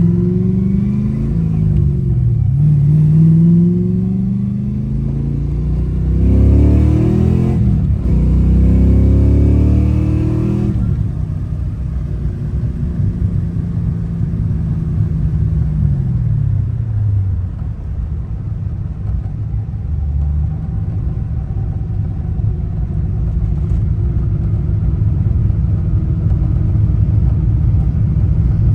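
Ford Fox-body Mustang engine being revved: a few quick rises and falls at first, then a higher rev held for about four seconds, which winds slowly back down to a steady idle.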